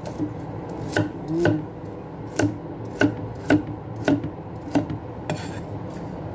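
Chef's knife chopping carrots into chunks on a thick wooden chopping block: about ten sharp knocks of the blade through the carrot into the wood, unevenly spaced at one to two a second.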